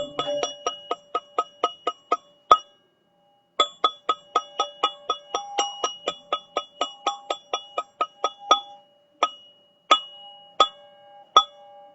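Teal ZenTube chime being played: quick strikes, about six a second, each setting off clear ringing metallic tones that sustain. The strikes stop for about a second near the three-second mark, then resume, and thin out to single strikes roughly a second apart near the end.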